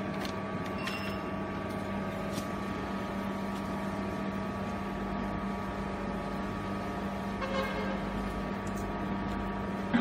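Steady hum of the vertical waste baler's electric motor and hydraulic pump running at idle, with a few light clicks as the bale is tied off.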